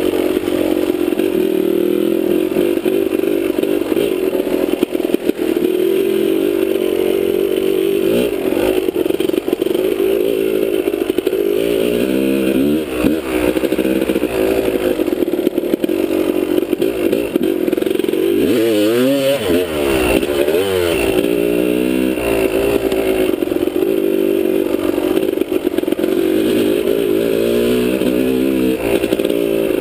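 Dirt bike engine running under the rider on a rough trail. The revs rise and fall with the throttle, with the biggest swings about twelve seconds in and again around nineteen to twenty-one seconds.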